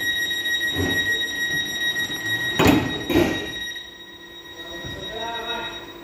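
Class 484 train's door warning tone sounding steadily, then the sliding passenger doors shut with two heavy thuds about half a second apart, and the tone stops soon after. A fainter whine follows near the end.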